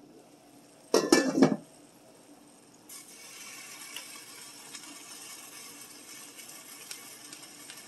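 Enamel pot lid clattering against the skillet for about half a second, about a second in, as it is lifted off. Then steamed vegetables are poured from a plastic colander onto the hot skillet, with a steady hiss from about three seconds in.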